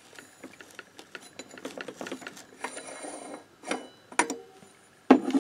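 Light metallic ticking and clicking as the fixed half-pulley of a Motobécane roller variator is spun off its thread by hand, with two sharper clicks near the end.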